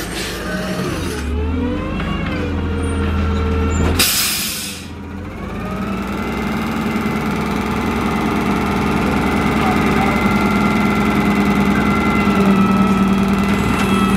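Freightliner M2 garbage truck's diesel engine pulling up and slowing to a stop, with a short sharp air-brake hiss about four seconds in. The engine then idles steadily.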